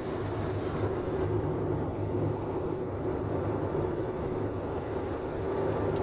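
A car's engine and tyre noise heard from inside the moving car, a steady low hum.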